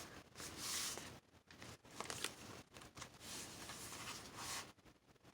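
Paper being handled and pressed down by hand, rustling faintly in several short bursts.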